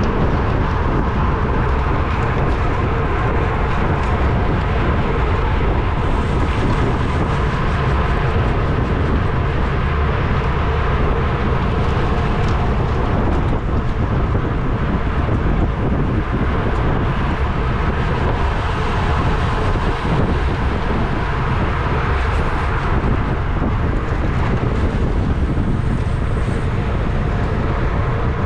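Wind rushing over the microphone of a racing cyclist's camera at race speed, a loud, steady buffeting.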